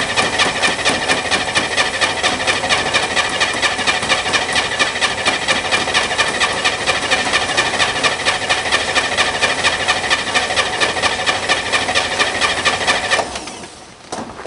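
Corvair Spyder turbo's air-cooled flat-six being cranked over by the starter motor, a fast, even chugging that stops abruptly near the end. It is a cold no-start: the engine turns over but does not catch.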